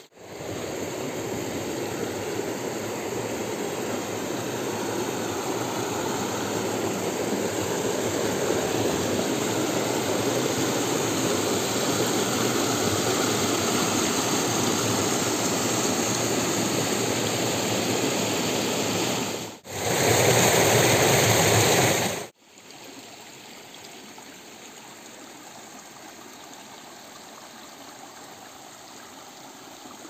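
Water rushing over rock ledges and through small rapids, a steady rush. About twenty seconds in it cuts to a louder rush for a couple of seconds, then to a quieter, gentler flow.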